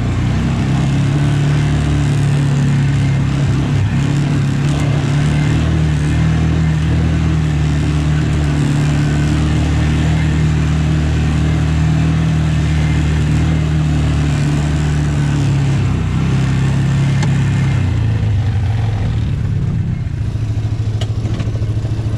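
Farm tractor's diesel engine running steadily at working speed, easing off slightly near the end.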